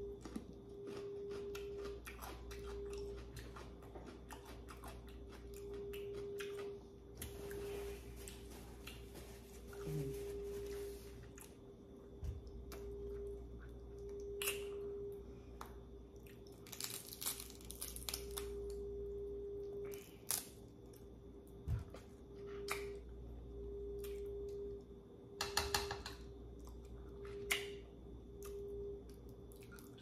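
Close-up eating sounds of a seafood boil: wet chewing, squishing and smacking, with many sharp clicks and short crunching, crackling bursts as the food is bitten and pulled apart.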